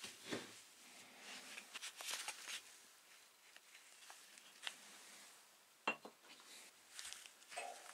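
Faint handling sounds as a greasy blowtorch part is turned over in rubber-gloved hands, with scattered small clicks and one sharp tap about six seconds in as the part is set down on a wooden workbench.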